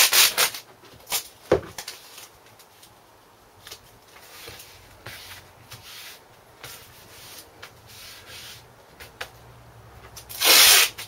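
Masking tape ripped off the roll in a loud rasp, then hands pressing and rubbing tape and a sheet of sandpaper flat onto a workbench, with a couple of knocks. Near the end another strip of tape is pulled off the roll with a second loud rasp.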